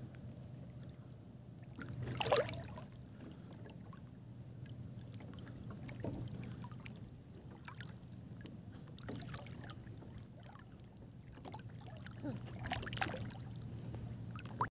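Shallow sea water lapping and sloshing under a steady low rumble, with a brief louder sound about two seconds in and another near the end.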